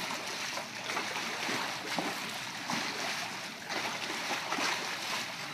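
Water splashing and sloshing as a large fish thrashes at the surface, striking at bait dangled on a line. Several short splashes come over a steady wash of churned water.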